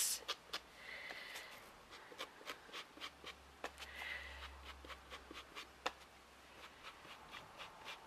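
Blending tool's pad dabbing and rubbing walnut stain onto the edges of a painted wooden birdhouse: faint repeated light taps, with two short scratchy rubs about a second in and again about four seconds in.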